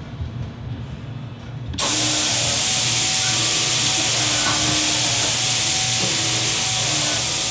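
An automated spray-tan booth's nozzles start spraying about two seconds in: a sudden, loud, steady hiss of tanning mist.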